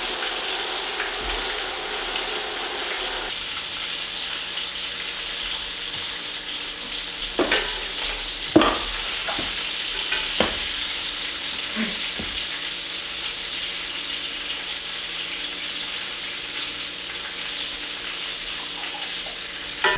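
Cornmeal-breaded catfish fillets sizzling steadily in hot oil in a cast-iron skillet. Four or so short clinks of metal utensils in the middle of the stretch as pieces are turned and lifted out.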